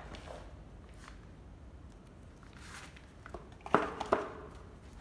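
A few light clicks and knocks from handling a power-tool battery charger, the two loudest close together about three-quarters of the way through.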